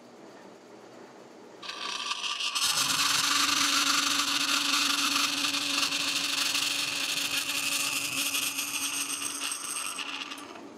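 A 26-inch DoAll vertical bandsaw cutting a notch out of a metal panel. The blade bites into the plate about two seconds in and cuts with a loud, steady noise over a low hum, then drops off near the end as the cut finishes.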